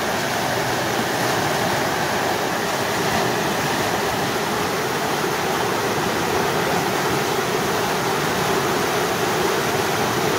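Whitewater rapids rushing, a steady, even roar of churning water.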